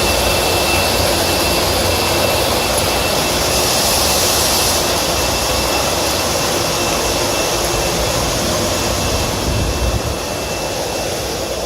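Steady loud whoosh and hum of running HVAC equipment, with a thin steady high whine over it.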